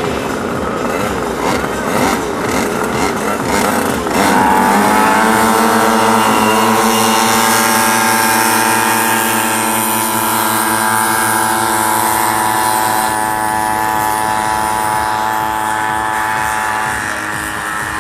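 Several small pocket-bike and mini-quad engines revving unevenly, then about four seconds in held wide open in one steady, sustained drone as the machines race off, easing slightly near the end.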